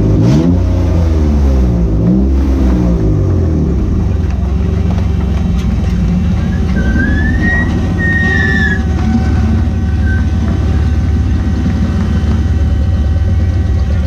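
Honda V6 of a mid-engine-swapped 1967 Ford Mustang race car, heard from inside the cabin. Its revs rise and fall a few times early on, then it runs at low, steady revs while the car rolls slowly. A brief high squeal comes about halfway in.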